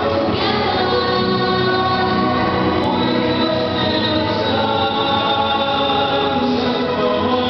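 A song playing with a group of voices singing.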